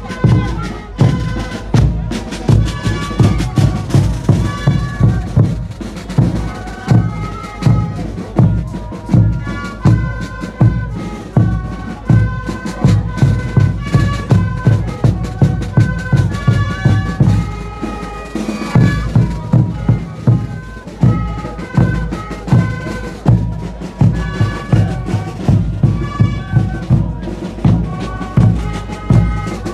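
Band music: a steady drum beat with a melody played over it.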